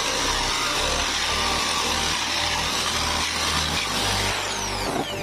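Electric drill spinning a homemade hole saw made from an old bearing race, cutting into a wooden board with a steady grinding hiss. Near the end the pitch falls as the drill winds down.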